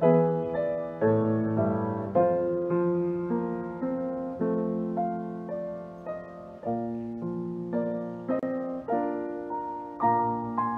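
Solo piano playing a slow piece, with chords and single notes struck about once a second and left to ring out.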